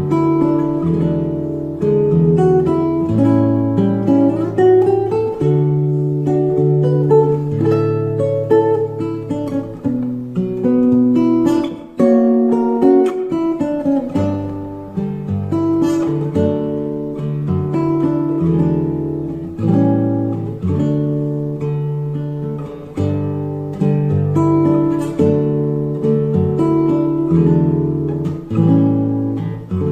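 Acoustic guitar played solo: chords plucked and strummed over a moving bass line, changing every second or so.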